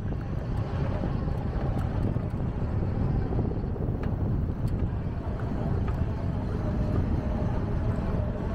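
Steady low noise of wind buffeting the microphone on a moving bicycle, mixed with passing city traffic.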